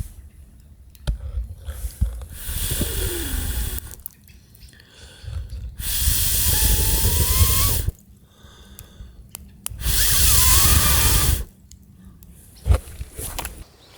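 A person blowing hard on a campfire three times, each blow a long rush of breath of about two seconds with a faint whistling tone gliding through it. Small sharp clicks and crackles come in the pauses between blows.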